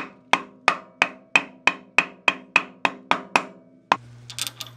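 Wooden block knocking a pulley onto the cutter-head shaft over its key: a steady run of about a dozen knocks, about three a second, each with a short metallic ring. The knocks stop a little before the end, and a few light clicks follow.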